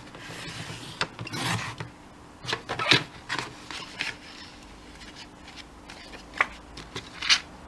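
Sliding paper trimmer cutting paper: the cutter head rasps along its rail in two short swishes, followed by sharp clicks and taps as the trimmer and paper are handled.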